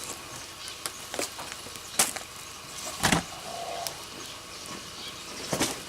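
Tea packaging being handled: scattered rustles and clicks of bags and box, with a heavier knock about three seconds in.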